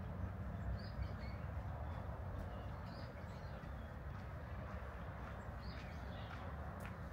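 A few short, high bird chirps over a steady low outdoor rumble.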